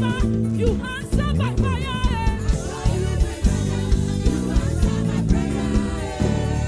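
Live gospel praise music: a church band plays a steady beat with bass and drums, while a voice sings wavering, ornamented runs for the first few seconds.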